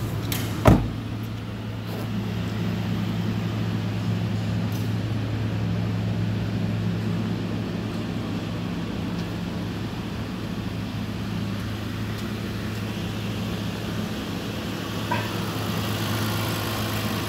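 A 2012 Kia Carnival's 3.5-litre petrol V6 idling steadily, with a single loud thump about a second in.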